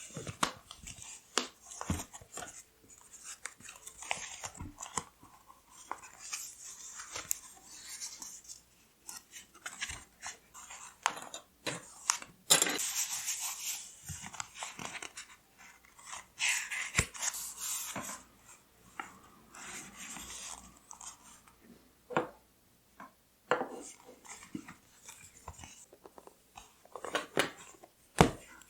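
Paper and stationery being handled: paper rustling and crinkling, with scattered taps and clicks. Two longer stretches of rustling fall about halfway through.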